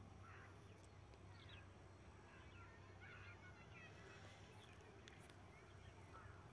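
Near silence: faint bird calls chirping on and off over a low steady hum.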